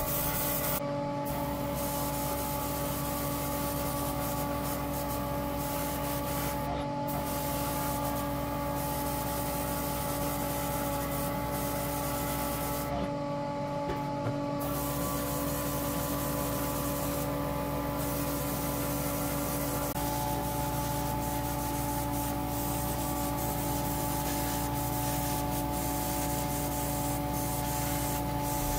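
Airbrush spraying paint with a steady hiss of compressed air, over the constant hum of a spray booth's extraction fan. The hiss stops briefly three times while the hum carries on.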